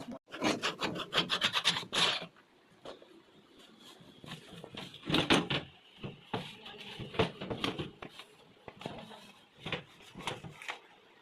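Quick rasping strokes, about ten a second for the first two seconds, then scattered scrapes and knocks, as of hand work on a part.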